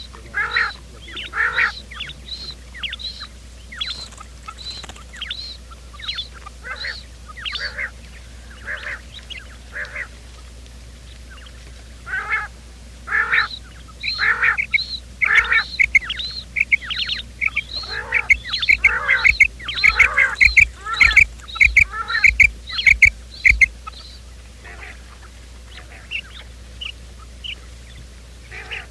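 Quail calling: a long series of short, sharp repeated notes, about two a second at first, then faster and louder for roughly ten seconds in the middle before thinning to a few scattered notes near the end. It is a quail call used as a lure to draw wild quail to a trap.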